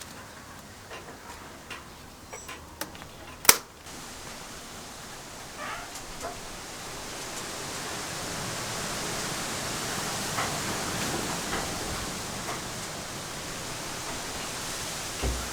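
A few light clicks and one sharp click, then a steady hiss that grows gradually louder and holds.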